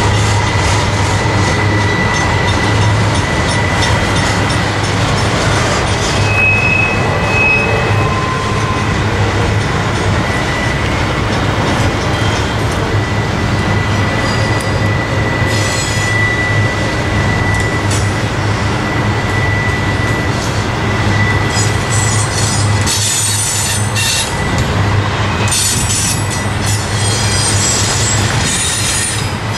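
Double-stack intermodal freight train rolling past, a continuous heavy rumble of steel wheels on rail. Over it, a steady high-pitched wheel squeal sounds as the cars take the curve.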